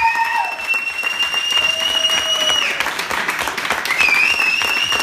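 Crowd applauding, with two long shrill sounds held on one high pitch over the clapping, the first lasting about two and a half seconds and the second starting about four seconds in.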